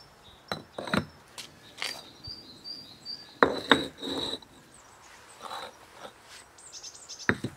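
Red clay bricks being handled and set down on a stack of bricks, giving several hard brick-on-brick knocks, loudest about three and a half seconds in and again near the end. High chirps sound faintly in the middle.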